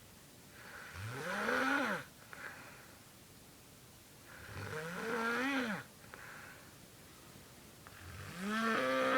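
A sleeping person snoring with an odd pitched, voice-like tone: three long snores about three and a half seconds apart, each rising in pitch and then falling away. A short, fainter breath follows each snore.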